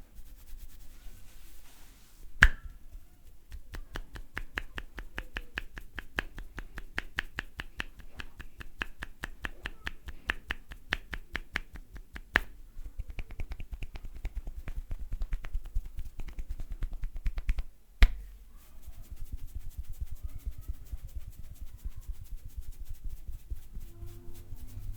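Rapid, rhythmic snapping and popping from a barber's hands working the hair and scalp in a hair-popping head massage, several strikes a second in long runs. Two much louder single sharp snaps stand out, one about two seconds in and one about eighteen seconds in.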